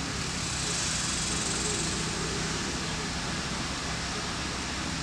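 Steady outdoor background noise: an even hiss with no distinct events, a little brighter in the highs near the start.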